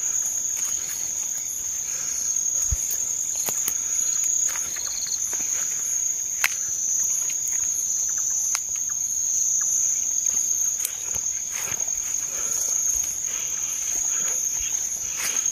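Night insects, crickets, trilling in a steady, high-pitched chorus, with a few scattered sharp clicks over it.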